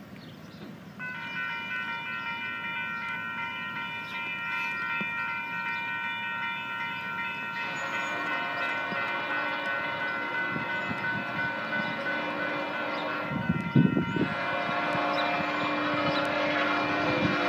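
Grade-crossing warning bell starts ringing about a second in as a Union Pacific freight train approaches. From about eight seconds the approaching locomotive's horn and rumble join and grow louder, with lower horn notes coming in near the end.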